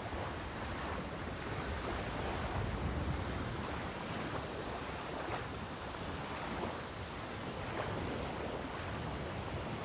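Ocean waves: a steady rush of sea water washing, with no music or voice.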